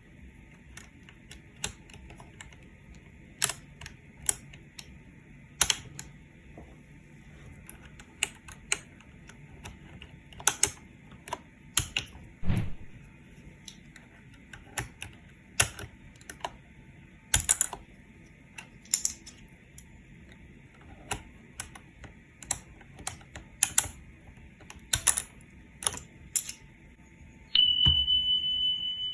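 Sharp plastic clicks and pops at irregular intervals from a mechanical keyboard as its keycaps are pulled off the switches. Near the end a steady high electronic beep starts and holds.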